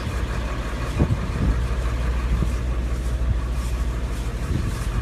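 Vehicle engine idling, a steady low hum, with a couple of brief knocks about a second in.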